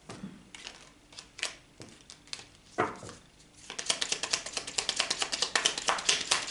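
A deck of Lenormand cards shuffled by hand: a few scattered card snaps and slides, then from about halfway a fast, steady run of clicking as the cards are riffled through quickly.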